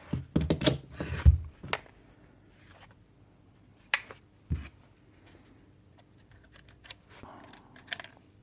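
Clicks, knocks and clatter of a cordless power tool being handled. A quick run of knocks comes in the first two seconds, the heaviest a dull knock just over a second in. Sparser clicks and another knock follow about four and a half seconds in.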